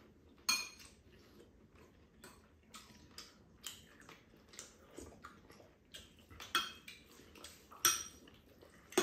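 Spoons clinking and scraping against ceramic bowls during a meal: scattered light taps and scrapes, with a sharper clink about half a second in and a few louder ones near the end.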